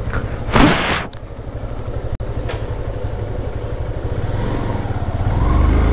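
Motorcycle engine idling, with a short loud burst of rushing noise about half a second in. Near the end the engine picks up as the bike pulls away.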